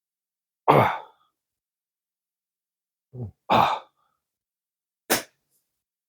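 A person's breathy sighs, two of them about three seconds apart, the second just after a short low grunt, then one brief sharp click near the end.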